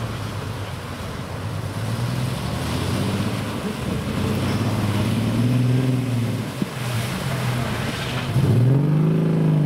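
Jeep Grand Cherokee engine revving as the SUV churns through a flooded mud pit, its wheels spinning and throwing mud and water. The engine note rises and falls several times, with the loudest, highest rev near the end.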